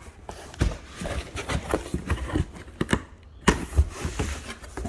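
A cardboard box being cut open with a razor blade and its flaps pulled apart: irregular scratching, crackling and tapping of cardboard and packaging, with a sharper snap about three and a half seconds in.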